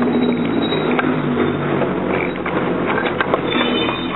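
Off-road SUV engine running as it drives over a rough dirt track, heard from inside the cabin, with a few sharp knocks and clicks from the body and loose parts, one about a second in and a couple just after three seconds.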